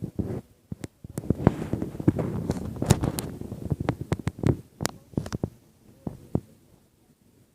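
Campfire crackling with sharp pops, over a low rumbling buffeting on the microphone that is strongest from about one to five seconds in and then fades, leaving scattered pops.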